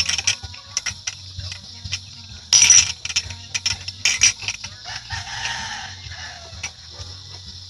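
Long string beans being handled and snapped: scattered light clicks and rustling, with one short, sharp noisy burst about two and a half seconds in.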